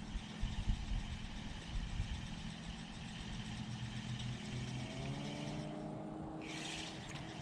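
Engine running with a steady low hum, its pitch rising from about four and a half seconds in as it speeds up.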